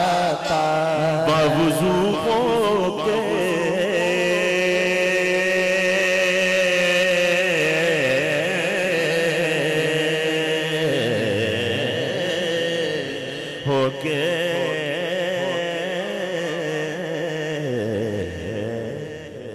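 A male naat reciter's voice, amplified through a microphone and sound system, singing long drawn-out melodic notes that waver and hold. The singing eases off near the end.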